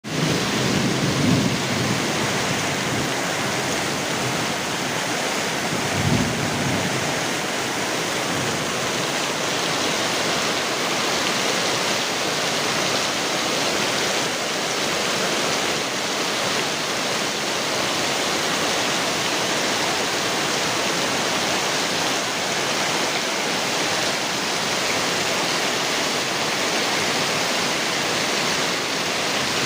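Heavy rain pouring steadily, a dense even hiss, with two short low rumbles about a second in and about six seconds in.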